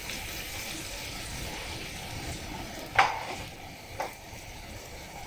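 Chicken cooking in a pan with stock and dark soy sauce, a steady sizzle as it is stirred, with a utensil knocking against the pan twice: sharply about three seconds in and more lightly a second later.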